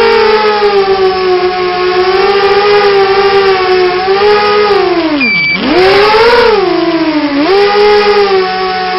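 Coptergiest CGX 250 racing quadcopter's brushless motors whining, several close pitches wavering against each other as the throttle moves. About five and a half seconds in, the pitch dives steeply as the throttle is chopped, then climbs straight back as the motors spool up again.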